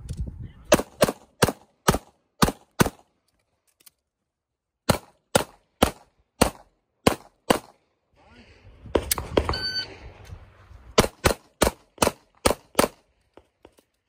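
A handgun fired in three quick strings of about six shots each, two to three shots a second, at steel plate targets. A shot timer's electronic start beep sounds before the last string.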